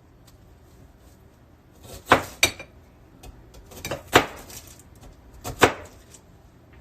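A few sharp knocks on a kitchen cutting board, in three pairs about two, four and five and a half seconds in.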